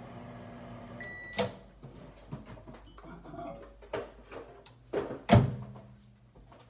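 Microwave oven running with a steady hum that stops about a second in with a short beep, followed by the click of the door opening. A cup is taken out with some clatter, and the door shuts with a thump about five seconds in, the loudest sound.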